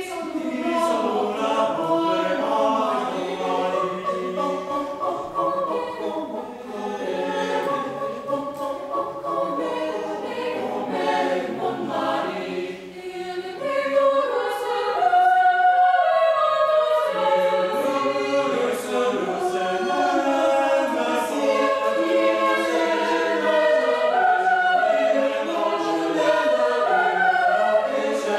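High school mixed-voice chamber choir singing in several-part harmony, dipping briefly about halfway through and then growing louder.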